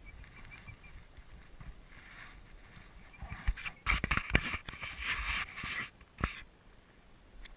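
Close rustling with a string of sharp knocks and thumps from about three seconds in to about six seconds, then faint background hiss.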